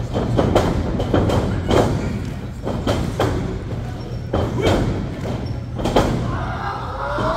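Wrestlers trading strikes in the ring: a string of about ten sharp smacks and thuds at irregular intervals, some barely half a second apart.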